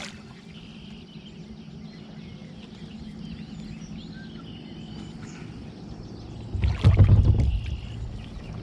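Kayak handling noise over a steady low outdoor hum, with a louder burst of bumping and rustling about seven seconds in as the angler reaches for the anchor while playing a fish.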